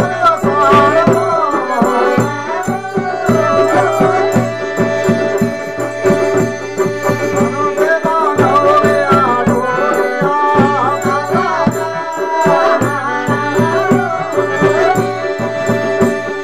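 Himachali musadha folk ensemble playing: harmonium holding a steady drone under an ornamented melody, a double-headed barrel drum beating a regular rhythm, and small hand cymbals clinking on the beat.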